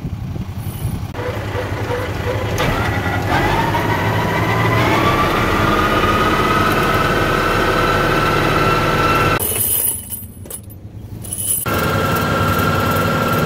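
Tractor engine driving a PTO-powered welding generator through its drive shaft as it spins up: a whine that rises in pitch over a few seconds, then holds steady. It dips briefly about ten seconds in and comes back at the same steady pitch.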